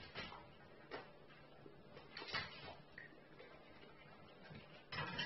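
A dog eating dry kibble from a stainless steel bowl: faint, scattered clicks of kibble against the metal bowl, then a louder burst of noise near the end.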